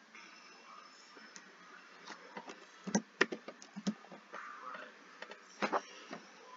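Scattered clicks of a computer mouse and keyboard, about half a dozen sharp ones from the middle on, over faint room noise.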